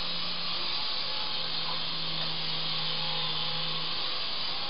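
Syma S109 mini R/C Apache helicopter in flight, its small electric motors and rotor blades whirring steadily with a high-pitched whine, over a low hum that drops out briefly about a second in and again near the end.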